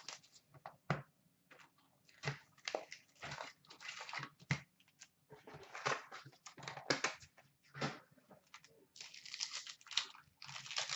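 Plastic wrapping crinkling and 2015-16 Upper Deck Ice hockey card packs being handled and torn open, in irregular rustling, crackling bursts with a longer stretch of crinkling near the end.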